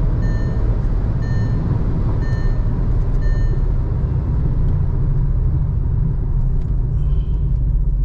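Inside the cabin of a Skoda Kushaq slowing down from about 130 km/h: a steady low rumble of road, tyre and car noise. Over it comes a repeated electronic warning chime, the over-speed alert that sounds above 120 km/h. The chime stops about three and a half seconds in as the speed drops below that.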